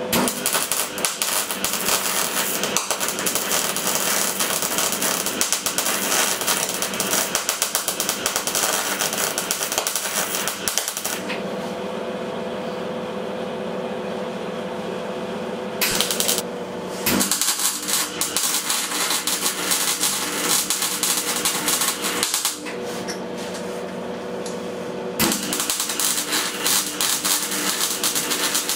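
Electric arc welding on a cracked steel frame tube: a rapid, steady crackle as the weld bead is laid into a ground groove. It stops for a few seconds about eleven seconds in, and again after about twenty-two seconds, leaving a steady hum, then starts again.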